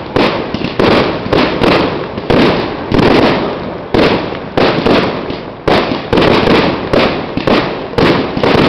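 Aerial fireworks bursting in a rapid barrage, a sharp bang about twice a second, each bang trailing off briefly before the next.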